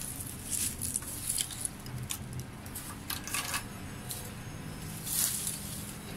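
Dry cut tree branches rustling and scraping as they are carried and handled, in several short bouts.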